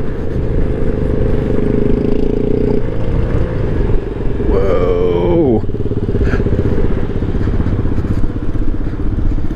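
Honda Ruckus scooter's 49 cc four-stroke single running along a dirt road, with wind and road rumble. About halfway through, an engine's revs drop quickly in a falling whine as the riders slow.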